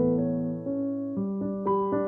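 Background piano music: slow, sustained notes, with new chords entering every half second or so.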